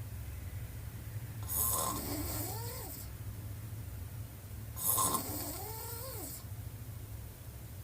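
Woman snoring through a wide-open mouth: two snores about three seconds apart, each a breathy rush with a rattling tone that rises and then falls. A steady low hum runs underneath.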